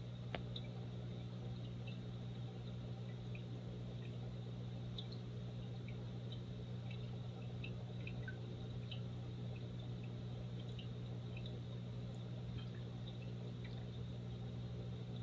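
Aquarium filter running: a steady low hum with faint, scattered water drips and small ticks.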